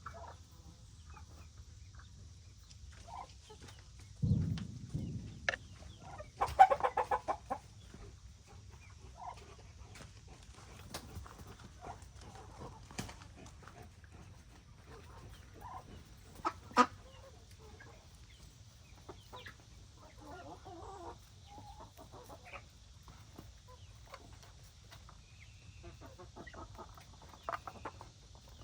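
Chickens clucking on and off, with a louder run of hen calls about six to seven seconds in. A dull low thump comes about four seconds in, and scattered sharp taps and clicks are heard throughout.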